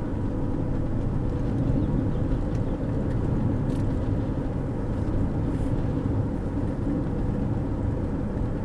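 Steady engine and road noise from inside a moving car cruising along a country road.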